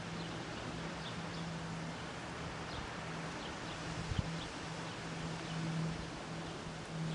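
Outdoor ambience: a steady hiss with a low, wavering hum, and faint short bird chirps scattered throughout. A single sharp click about four seconds in.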